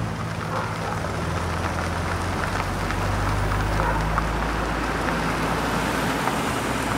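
Steady road traffic noise with a low, even engine rumble.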